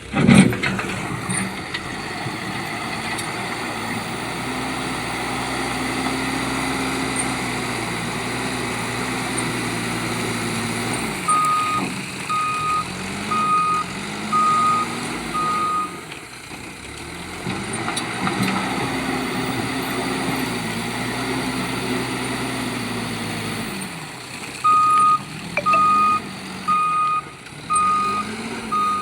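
Heavy diesel machinery working: an engine runs steadily, its pitch rising and falling again and again as it is revved under load. Twice a reversing alarm beeps steadily, a little more than one beep a second. A sharp loud knock comes right at the start.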